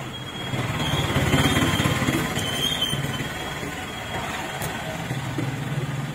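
A motor vehicle's engine running, growing louder about a second in and easing off a few seconds later.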